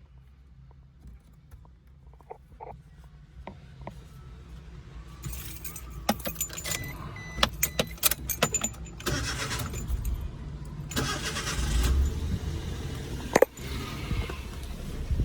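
Small van's engine running with a steady low rumble that grows louder, with clicks and rattles around it, and one sharp knock near the end.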